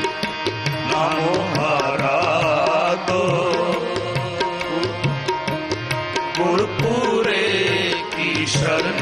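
Sikh kirtan: harmoniums play the shabad's melody over a steady tabla rhythm, with voices singing in places.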